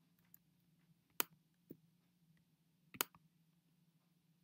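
Faint clicks of a computer mouse, a handful of separate clicks with the two loudest about a second in and about three seconds in, over a faint low steady hum.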